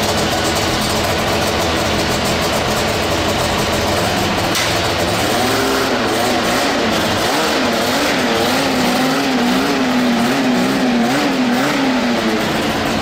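Two-stroke engine of a Can-Am Maverick X3 side-by-side running. From about halfway through, its revs waver up and down about once a second.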